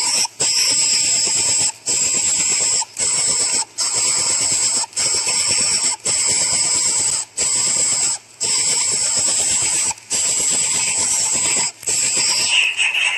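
Coucal nestling begging with a loud, high hissing buzz, held for a second or so at a time and broken by brief pauses about a dozen times.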